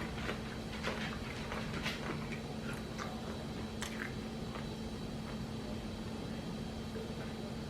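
A person chewing a chicken salad sandwich close to the microphone: soft, wet mouth clicks and squishes, more frequent in the first few seconds, over a steady low hum.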